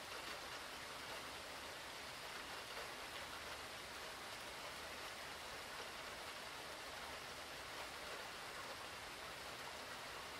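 Steady rainfall from Hurricane Florence, an even hiss of rain on surfaces that holds at the same level throughout, with no thunder or other sudden sounds.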